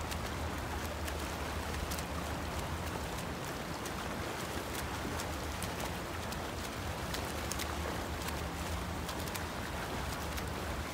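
Freestyle swimmers' arm strokes and kicks splashing in a pool, an even watery wash with small slaps scattered through it, over a steady low hum.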